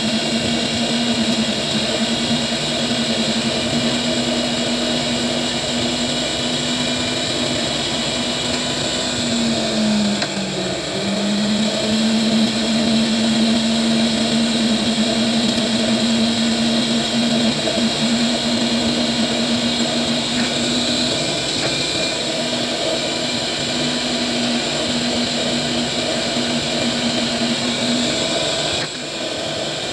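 A small electric motor, as in a jeweler's bench tool, running steadily with a hum. Its pitch dips briefly about ten seconds in, then recovers, and the level drops briefly near the end.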